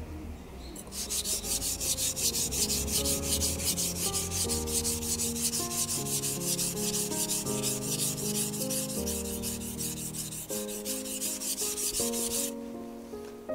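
Steel santoku kitchen knife blade being sharpened on a wet whetstone: a fast, even rhythm of scraping strokes that starts about a second in and stops about a second before the end. Soft piano background music plays underneath.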